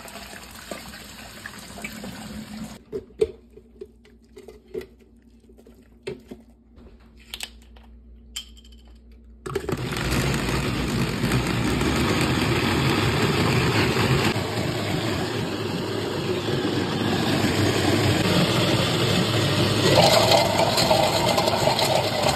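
Water and boiled pizza rolls poured from a pot into a kitchen sink, then scattered clinks and knocks of kitchenware. About nine seconds in, a loud, steady rushing noise starts abruptly and runs on.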